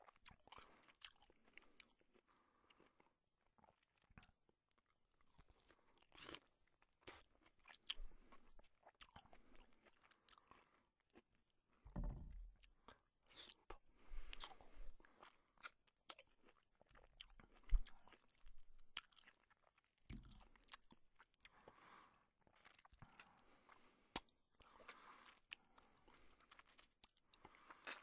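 A cat licking cloth: faint, irregular rasping strokes of its rough tongue on the fabric, with a few louder scrapes here and there.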